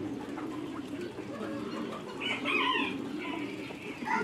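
A penned flock of poultry, Muscovy ducks and geese, calling and chattering steadily, with one louder call lasting under a second about two seconds in.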